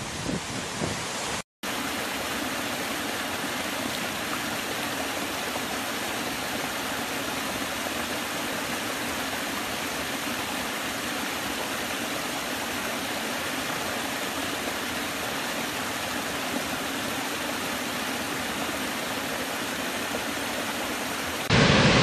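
Steady, even rush of a small woodland stream spilling over low rock steps into a pool. It starts suddenly after a brief dropout about a second and a half in, following a louder, gustier rush of a big waterfall with wind on the microphone. Just before the end it cuts to the louder rush of a large waterfall.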